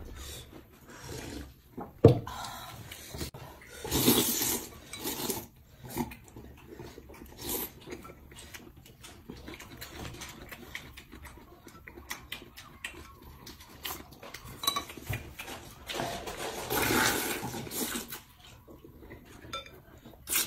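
Close, loud slurping of noodles, in irregular bursts with the longest near the end, with chewing and smacking between them. Chopsticks clink against porcelain bowls, and there is a sharp knock about two seconds in.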